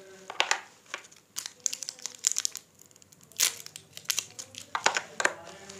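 Thin plastic wrapping crinkling and tearing in irregular sharp crackles as hands handle and peel it.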